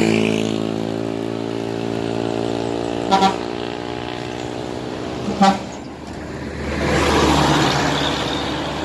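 A bus engine running steadily, with two short horn toots about three and five and a half seconds in. Near the end a vehicle rushes past.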